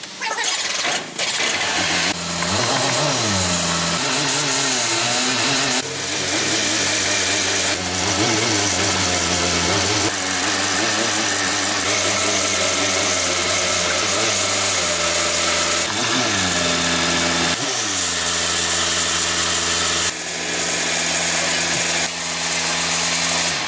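A vehicle engine running, revved up and back down a few times between steady stretches, in a string of short cuts.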